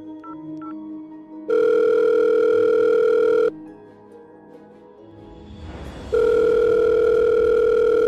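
A corded landline desk phone gives a couple of short keypad beeps as the number is dialled, then two loud, steady telephone tones of about two seconds each: a call that does not go through. Soft background music plays under it, with a rising whoosh just before the second tone.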